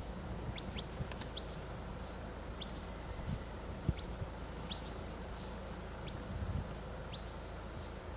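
Shepherd's whistle commands to a working sheepdog: two short rising chirps, then four whistles that each rise sharply and hold a high note for about a second.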